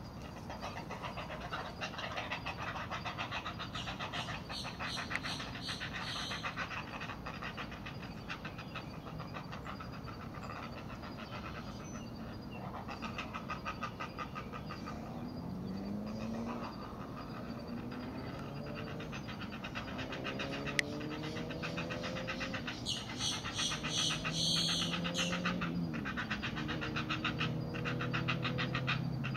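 Great blue heron chicks begging at the nest: a rapid, continuous clicking chatter. Lower drawn-out calls that glide up and down join in about halfway through.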